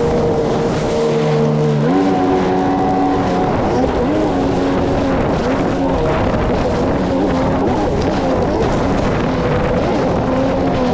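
Sea-Doo personal watercraft running under way over choppy water, engine and water noise steady, with music playing over it in held, stepping notes.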